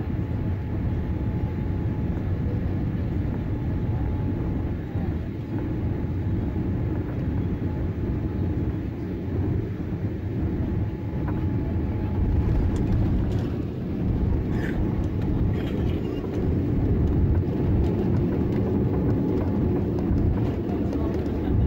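Cabin noise inside a Boeing 787-8 airliner landing: a steady rumble of engines and airflow with a faint steady whine. It grows louder about halfway through as the jet touches down and rolls out on the runway with its spoilers up.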